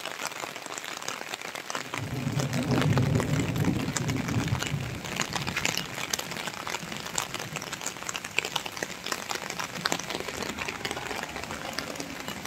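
Steady rain falling on wet paving, a dense hiss full of the ticks of drops hitting the ground. A low rumble swells up about two seconds in and fades a few seconds later.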